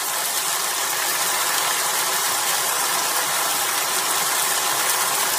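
Hot ghee frying and sizzling with a steady hiss as ghevar batter is poured into it in a thin stream.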